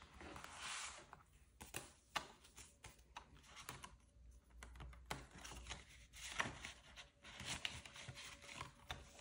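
Paper banknotes and a clear plastic binder envelope being handled, soft rustling and crinkling with scattered light clicks and taps.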